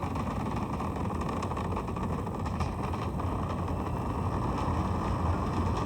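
Steady, muffled rumble of the Space Launch System rocket in flight: its four core-stage engines and two solid rocket boosters firing, with almost no high end.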